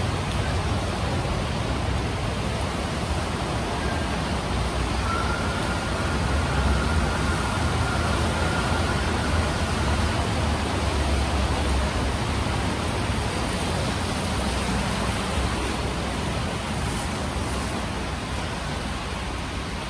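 Steady noise of a vehicle driving on a rain-wet road: a low rumble under an even hiss. A faint high whine runs from about five to ten seconds in.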